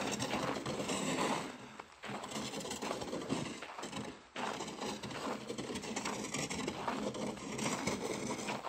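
A dog nosing and mouthing a plastic canister, scraping and knocking it over frozen, snow-dusted ground: a busy run of scrapes, clatters and rattles, with short pauses about two and four seconds in.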